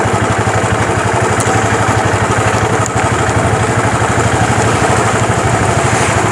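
Motorcycle engine running steadily as the bike is ridden at an even speed, its fast low firing pulse heard from the rider's seat under a steady hiss of wind and road noise.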